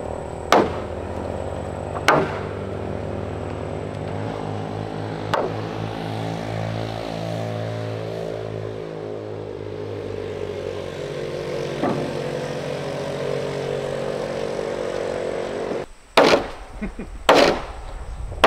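Hammer blows on a timber house frame, a few seconds apart, over the steady drone of an engine whose pitch dips and then rises in the middle. Near the end, after a short break, louder hammer blows come about a second apart.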